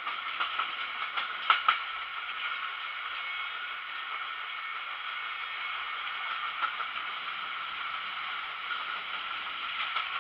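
Jinnah Express passenger coach running at speed, heard from its window: a steady rushing rattle of wheels on rails with scattered clicks and two sharper knocks about a second and a half in.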